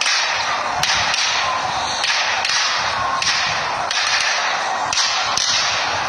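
Multi-shot fireworks cake firing shot after shot, about two a second, each a sharp launch followed by a hissing tail as it climbs.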